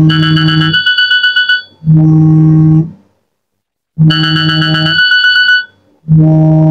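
Wake-up alarm ringing: a loud low buzzing tone with a fast-pulsing high chime over it, then the low tone alone, then a short pause, the pattern repeating about every four seconds.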